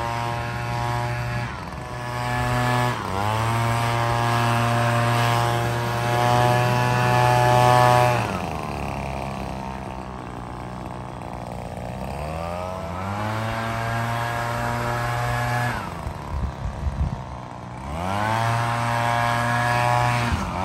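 Handheld leaf blower blowing leaves. Its whine rises to full speed, holds, then falls back to a lower speed several times as the trigger is squeezed and eased: dipping briefly about two seconds in, slowing for a few seconds after the eighth second, rising again around twelve seconds, dropping near sixteen and speeding up once more near the end.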